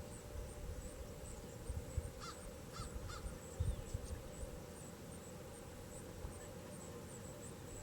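Three short bird calls about half a second apart, over a faint high chirp that repeats about twice a second.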